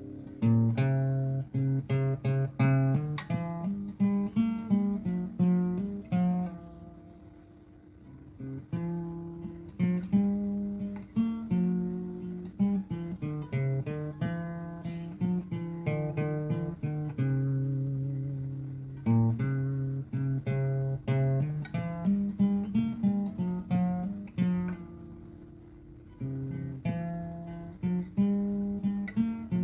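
Background music on acoustic guitar: picked notes and strummed chords.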